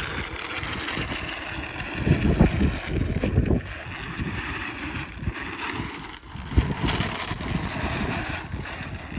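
Electric drive motors and belt drive of a small 3D-printed cart running as it rolls over asphalt, with a thin whine over a rolling rumble. The drive barely has the torque for its load and its belts keep slipping. Louder low rumbles, wind on the microphone, come about two to three seconds in and again near six and a half seconds.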